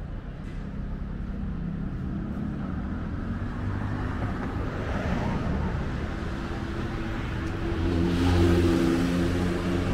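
Low rumble of a motor vehicle engine with road traffic. It grows louder about eight seconds in, as a vehicle's engine note and tyre rush swell.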